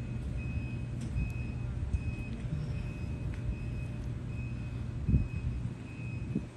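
A vehicle's reversing alarm beeping on one high pitch, a little more than once a second, over the low steady rumble of an engine. There is a dull thump about five seconds in.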